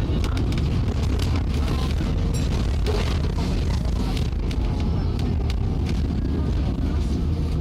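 Inside an Alexander Dennis Enviro400 bus with a Voith four-speed gearbox: the engine and driveline run as a steady low drone, with frequent rattles and knocks from the body, and the bus makes a gurgling noise.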